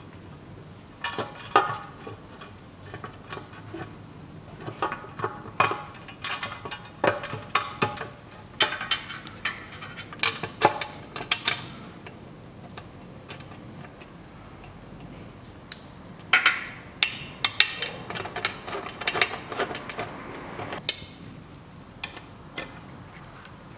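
Irregular sharp metallic clicks and clinks from a socket on an extension and bolts against the metal CVT oil pan as the pan is hung on its guide bolts and the bolts are started by hand. The clicks come in clusters, with quieter gaps between them.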